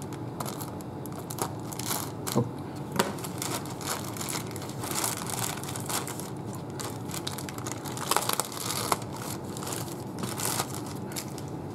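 Clear plastic bag of plastic model-kit sprues being handled and opened: irregular crinkling and rustling of the thin plastic, with a few sharper crackles.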